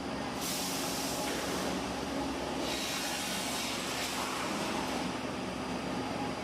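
Factory machinery running with a steady hum, with two bursts of hissing, the first starting about half a second in and the second near the middle.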